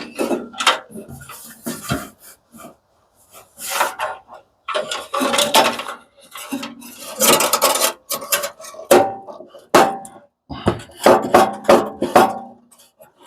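Metal clattering and scraping in irregular bursts as wiring and loose parts are pulled out of an industrial coffee machine, with a few short metallic rings in the second half.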